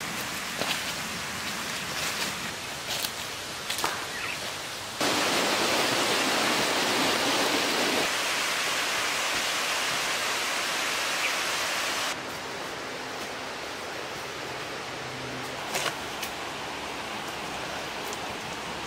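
Steady rushing outdoor noise, like running water or wind. It gets abruptly louder about five seconds in and drops back about twelve seconds in, with a few faint snaps and clicks.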